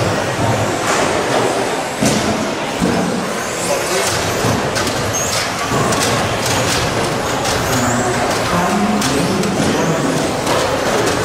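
Radio-controlled stadium trucks racing round an indoor carpet track: a steady din of motors and tyres with faint rising whines and scattered knocks, echoing in a metal-walled hall. A murmur of voices runs underneath.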